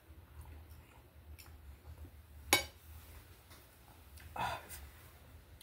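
Metal cutlery on a ceramic plate: one sharp clink about halfway through, with fainter ticks of the fork against the plate around it.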